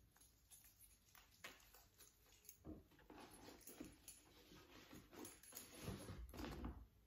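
Near silence with faint, scattered clicks and rustles: a leather shoulder strap is being handled and clipped onto a Louis Vuitton handbag.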